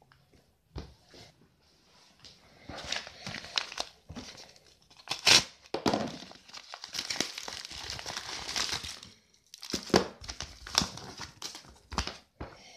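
Padded mailer and plastic packaging crinkling and tearing as a parcel is opened. Rustling comes in bursts with a longer steady stretch in the middle, and a few sharp clicks come near the end.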